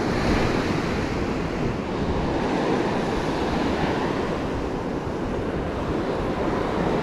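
Steady surf washing onto a sandy beach, mixed with wind rumbling on the microphone.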